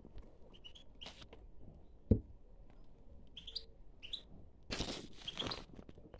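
Caged European goldfinches giving short, scattered chirps. A single thump comes about two seconds in, and a brief rustle near the end.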